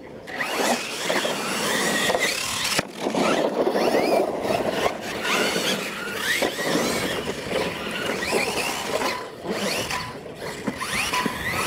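Two Losi LMT radio-controlled monster trucks racing, their electric motors whining and rising and falling in pitch with the throttle over a steady noisy rush. It starts about half a second in.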